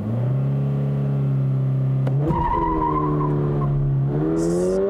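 2022 Toyota GR86's 2.4-litre flat-four boxer engine during a hard launch from a standstill, heard from inside the cabin. The revs rise and hold steady, break at a gear change about two seconds in, and the pitch climbs again near the end as the car accelerates.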